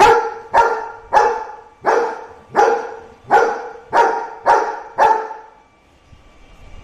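Golden retriever barking at a robot vacuum cleaner: nine loud barks at an even pace of a little under two a second, stopping about five seconds in.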